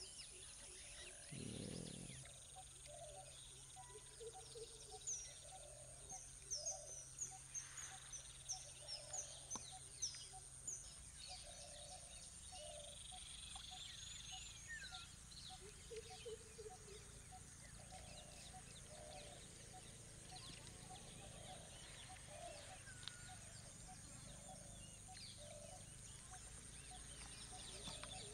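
Faint wetland ambience of birds calling. A flurry of short, high, falling chirps runs from a few seconds in to about ten seconds in, and a softer call repeats roughly once a second throughout, over a steady high-pitched tone.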